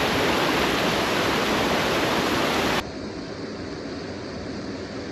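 Small waterfall and stream water rushing in a steady, loud hiss. A little under three seconds in it cuts off abruptly to a quieter, duller steady rush.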